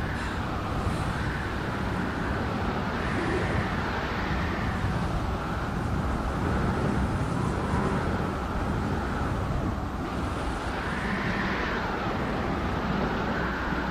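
Wind blowing in gusts: a steady low rumble with a whoosh that swells and fades every few seconds.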